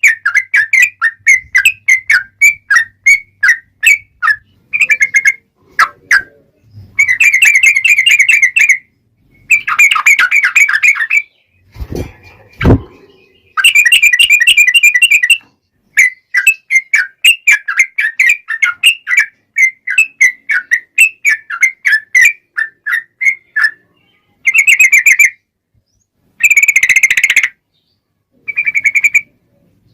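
Yellow-vented bulbul (trucukan) singing in rapid strings of chattering notes, the long rolling 'ropel' phrases, in bursts of one to two seconds broken by short pauses. Two low knocks come about twelve seconds in.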